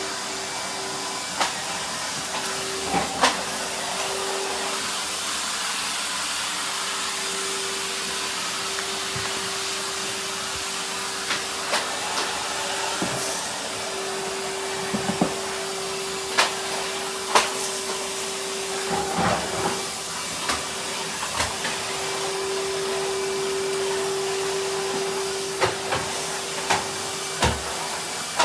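Numatic 'Henry' canister vacuum cleaner running steadily, a hissing rush with a steady whine, broken by scattered sharp clicks and knocks.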